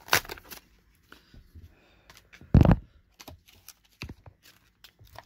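Crackles and clicks of a clear plastic blister pack being handled and pulled off a diecast car's card, with one dull thump about two and a half seconds in.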